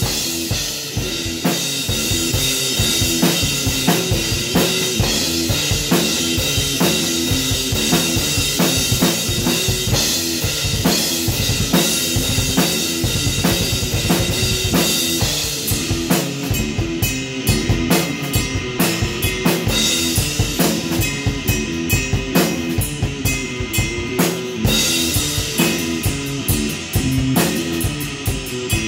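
Electric guitar playing a repeating rock riff over a full drum kit driving a steady beat with bass drum and snare.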